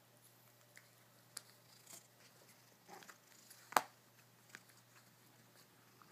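Cat chewing and biting on a flip-flop: faint, irregular clicks and snaps of teeth on the sole, with one sharper snap a little under four seconds in.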